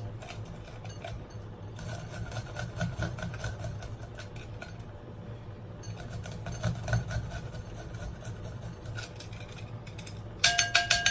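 Fresh ginger and garlic being crushed by hand in a bowl: irregular soft knocks and scraping, then several sharp, ringing clinks of a utensil against the bowl near the end.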